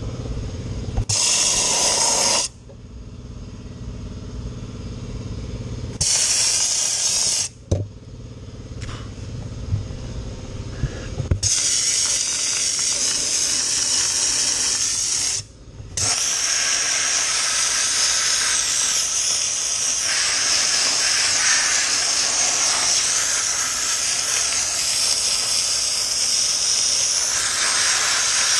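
Dry ice blaster nozzle spraying in a loud hiss, first in two short bursts of about a second and a half, then almost without a break from about a third of the way in, with one brief pause. Between the bursts a steady low hum carries on.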